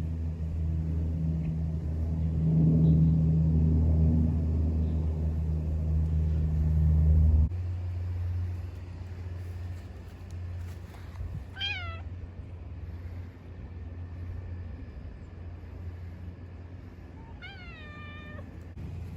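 Domestic cat meowing twice, two short calls that fall in pitch, one a little before the midpoint and one near the end. Before that, a steady low rumble cuts off abruptly about seven seconds in.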